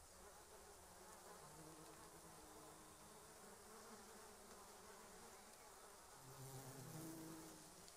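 Faint buzzing of flies, a low droning hum that comes and goes and swells about six seconds in.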